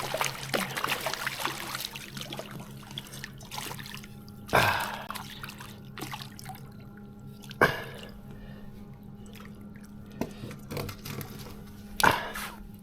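Water splashing and dripping as a hooked smallmouth bass is played at the bank, with three louder splashes about four and a half, seven and a half and twelve seconds in. A faint steady hum runs underneath.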